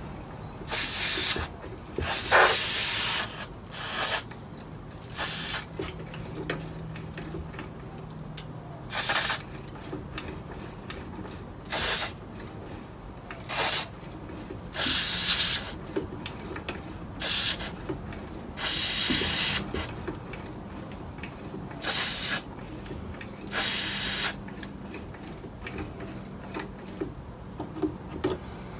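Aerosol can of contact cleaner spraying into a valve radio's band switch and contacts in about a dozen short hissing bursts, some a fraction of a second long and some about a second, with faint clicks between them.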